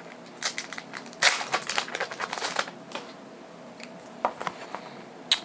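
A foil trading-card booster pack and its cards handled by hand: a run of crackling and crinkling for the first two to three seconds, then a couple of single sharp clicks near the end.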